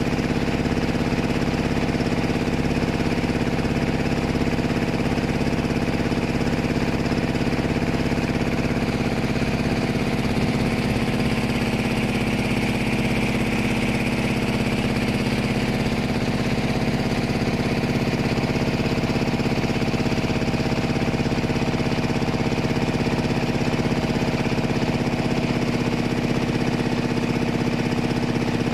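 A boat engine running steadily at an even speed, a constant rumble that does not change.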